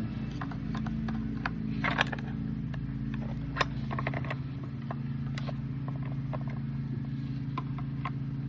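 Scattered sharp clicks and knocks of metal parts and tools being handled while an edger blade and its bolt are worked on. Under them runs a steady low engine hum.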